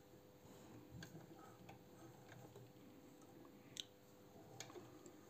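Near silence with a few faint, light clicks, the clearest about four seconds in, from hands handling the needle and slide-plate area of a Singer 66 sewing machine.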